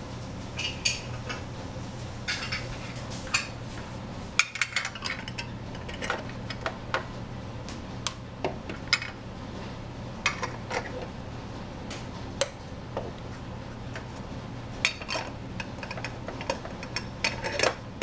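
Small glass yogurt jars clinking as lids are pressed onto them and the jars are picked up and set down on the gas stove's grates; a string of irregular sharp clicks and clinks.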